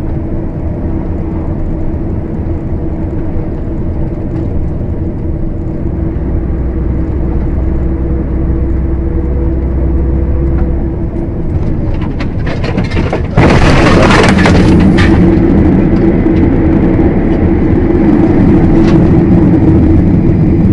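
Vehicle engine and road drone heard from a dashcam inside the cab, with a steady hum. About 13 seconds in, a sudden loud crashing burst lasts about a second and a half, and the drone stays louder after it.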